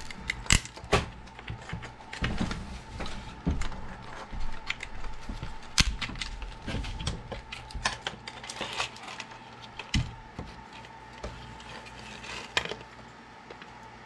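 Plastic alarm clock casing and its circuit board being handled and pried apart by hand: irregular clicks, rattles and small plastic knocks, with a few sharper knocks as parts hit the workbench.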